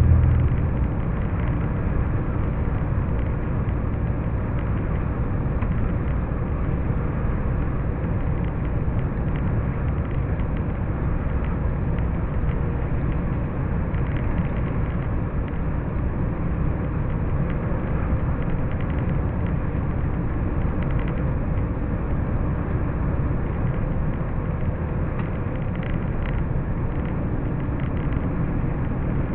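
Steady drone of road and engine noise inside a vehicle cruising on a motorway. A louder low rumble fades away in the first second, then the sound stays even.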